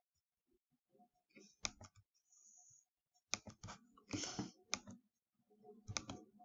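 Computer mouse clicking quietly, several clicks in small clusters, with a brief soft rustle about four seconds in.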